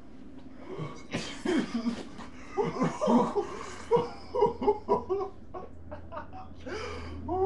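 A man coughing harshly from the burn of hot sauce, mixed with loud bursts of laughter from another man. There is a rough cough about a second in, a run of short laughs, and another cough near the end.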